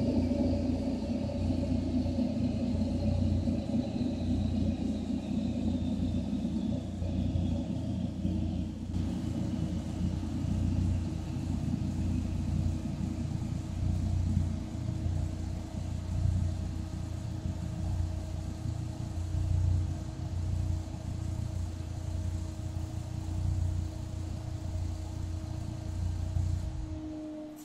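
A car's tyres and chassis-dynamometer rollers coasting down with the car in neutral and the clutch held, making a steady low rumble with a faint whine that falls slowly in pitch over the first ten seconds. The rumble fades near the end as the rollers come to a stop. This coast-down is the dyno's parasitic-loss measurement.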